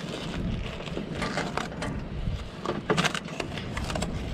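A filleting knife working along a fish fillet on a camp table, skinning it: a run of irregular small clicks and scrapes over a low rumble.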